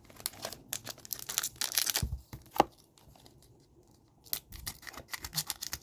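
Foil trading-card pack wrapper crinkling and tearing as it is handled and ripped open. The crackling comes in two bouts with a short pause in the middle.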